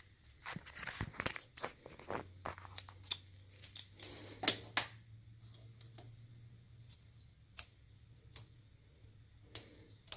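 Paper backing being peeled off the adhesive discs of a magnetic child-safety cabinet lock: an irregular run of small crinkles, rips and clicks, with the sharpest snap about four and a half seconds in.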